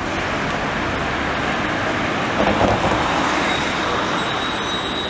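Van Hool Exqui.City double-articulated electric trolleybus rolling slowly past in street traffic: a steady hum of tyre and road noise, swelling a little about two and a half seconds in, with a faint high steady whine in the second half.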